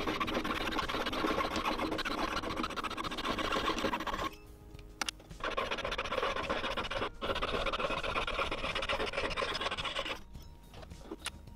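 Jeweller's piercing saw cutting through thick silver sheet on a wooden bench pin: a fast rasping of short saw strokes, pausing for about a second around four seconds in, dipping briefly near seven seconds and stopping about ten seconds in. Background music runs underneath.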